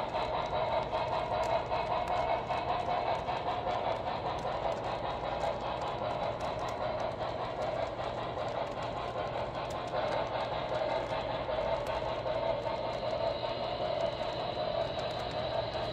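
Wheels of HO-scale model passenger cars rolling over the layout's track: a steady rolling whir with faint light ticks.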